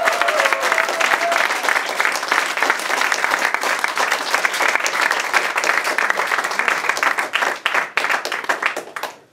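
Audience applauding, with the last held sung note fading out under it in the first second or so; the clapping dies away just before the end.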